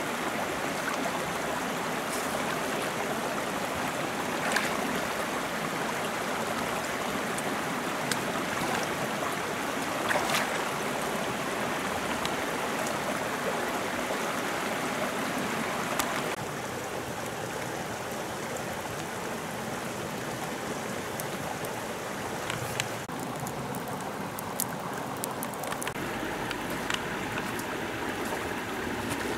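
Shallow river running over rocks: a steady rush of water, with scattered light clicks and rustles on top. About halfway through it steps down to a quieter, duller rush.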